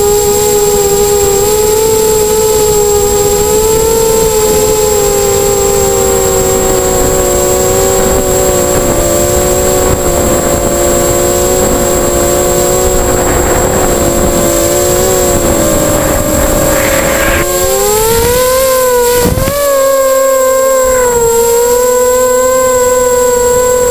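Eachine Racer 250 FPV quadcopter's motors and propellers whining, the pitch drifting with throttle and rising sharply about three-quarters of the way through, over heavy wind rumble on the onboard camera's microphone.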